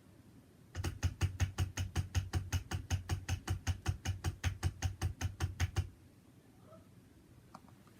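MOZA Aircross 2 gimbal motors running their auto-tune calibration to the camera's weight. They give a rapid, even ticking buzz of about six pulses a second. It starts about a second in and stops after about five seconds.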